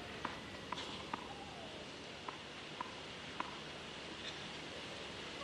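Low hush of a waiting stadium crowd, with six light taps of a tennis ball bounced on the clay court by the server, in two runs of three.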